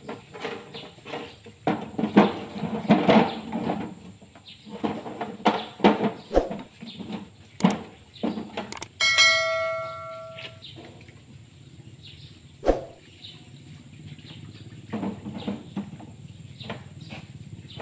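Metal tractor hub parts clink and scrape in a tray of washing fluid in irregular bursts. About nine seconds in comes a click and then a bright bell chime, a subscribe-button sound effect, which rings for over a second and cuts off.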